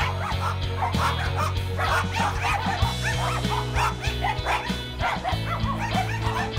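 Many kennelled dogs barking and yelping at once, several short rising-and-falling calls a second, overlapping, over background music.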